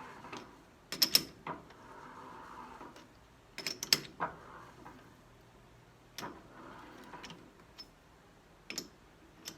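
A tap being turned by hand in short strokes while threading a ball handle on the lathe, with clusters of sharp metallic clicks about every two and a half seconds as the tap holder and locking pliers are worked and reset.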